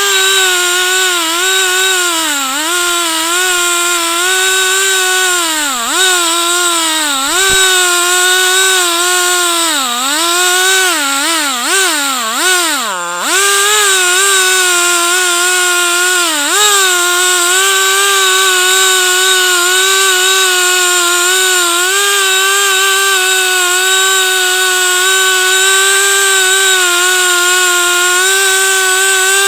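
Chainsaw on a chainsaw mill revving up sharply and running at high speed. Its pitch dips and recovers again and again in the middle, sagging deepest about halfway, as the cut loads the engine. It then holds a steady high whine to the end.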